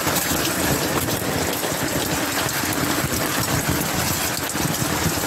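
Heavy tropical rain falling steadily, a dense hiss with a low rumble beneath it.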